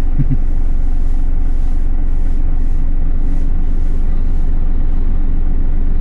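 Heavy tractor-trailer truck's diesel engine idling steadily, heard from inside the cab as a low, even drone.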